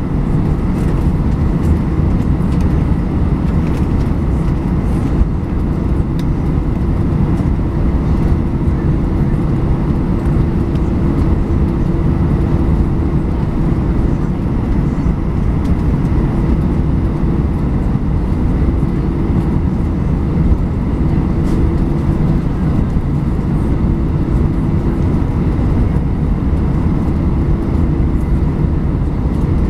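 Cabin noise inside an Airbus A320 taxiing on the ground: a steady low rumble with an even engine hum, no change in pitch or level.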